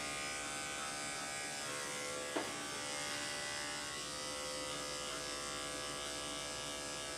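Corded electric dog-grooming clippers running with a steady hum while clipping a Schnauzer's wiry coat around the head and neck, with one brief blip about two and a half seconds in.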